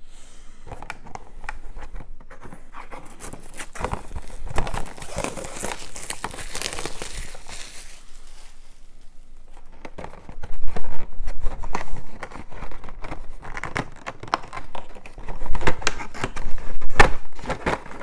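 Plastic wrapping crinkling and tearing as a boxed plastic miniatures kit is unwrapped and opened, with the cardboard box and plastic sprues rustling and clicking. It grows louder and clatters more in the second half.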